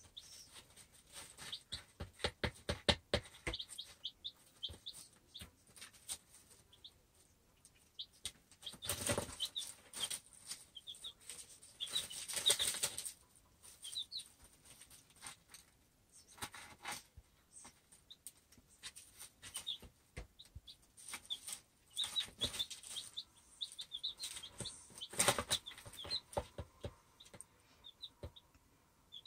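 Baby chicks pecking and scratching in pine wood shavings: runs of quick sharp pecking taps and several louder rustling bursts as they shuffle through the bedding, with short soft peeps now and then.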